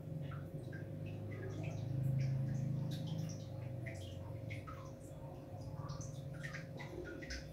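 Faint, irregular small ticks and crackles as a candle-heated utility-knife blade melts and cuts through the plastic slide of an airsoft spring pistol, over a low steady hum.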